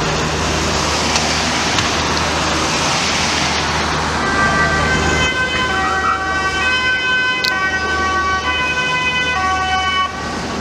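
Police vehicles driving past with road noise, then, from about five seconds in, an emergency siren sounding in alternating steady pitches until just before the end.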